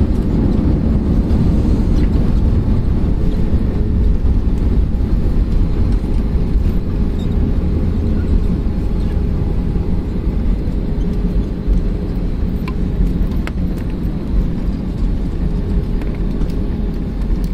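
Jet airliner's engine and runway rumble heard inside the cabin during the landing rollout, a steady low roar that slowly eases as the aircraft slows.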